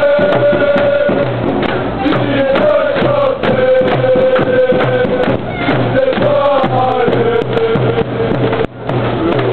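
Football supporters singing a chant in unison to a steady drum beat. The held melody steps slowly down in pitch, and the sound dips briefly near the end.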